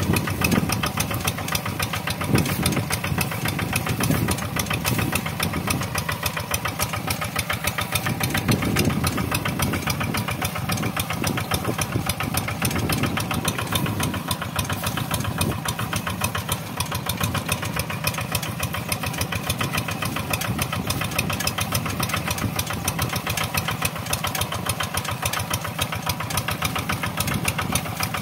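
Kubota single-cylinder diesel engine of a two-wheel hand tractor running steadily under load while its plough and cage wheels work through a muddy rice paddy, a fast, even chugging.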